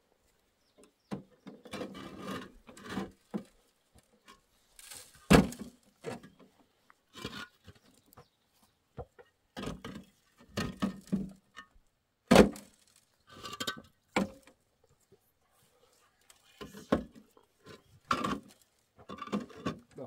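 Hollow concrete blocks clunking and scraping as they are set into a wheelbarrow and stacked on the ground. The knocks are irregular, with two sharp, louder strikes about five and twelve seconds in.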